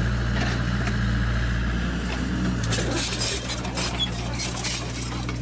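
Radio-controlled toy excavator working: its electric motors hum steadily, and from about halfway through a rattle of clicks and scraping comes in as the bucket digs into the sand.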